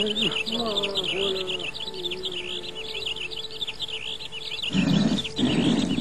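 Birds chirping busily, a steady stream of short high chirps. A faint wavering tone sounds under them for the first few seconds, and a low rushing noise comes in about five seconds in.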